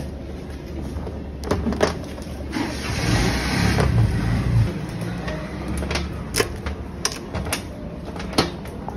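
Hard crab claws clicking and knocking against a steel tray as they are handled and dropped, a few sharp clacks over a steady low background rumble.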